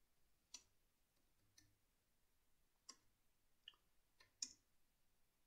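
Faint computer keyboard keystrokes: about six separate clicks, irregularly spaced, against near silence.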